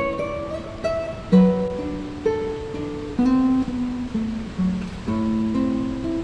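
Background music of a plucked guitar, with single notes and chords struck one after another and left to ring.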